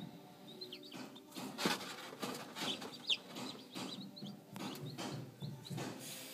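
Newly hatched chicken chicks peeping: short high chirps that fall in pitch, about one every second, with a few knocks and rustles mixed in.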